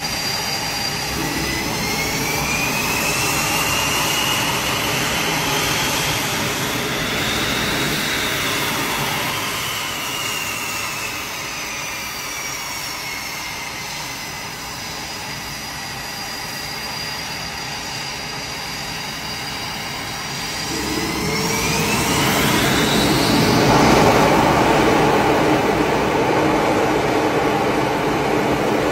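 Twin jet engines of an F/A-18 on a carrier catapult running with a high whine that slowly rises and falls in pitch. About three-quarters of the way through, the whine climbs steeply and the noise grows louder as the engines spool up to launch power.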